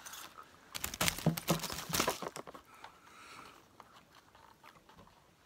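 Foil snack wrapper crinkled and crumpled close to the microphone: a dense run of sharp crackles starting about a second in and lasting around a second and a half, then fainter rustling.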